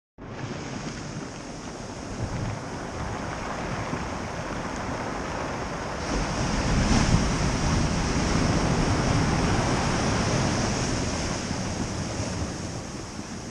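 Atlantic Ocean surf washing and breaking at high tide, with wind buffeting the microphone. The surf swells louder about halfway through.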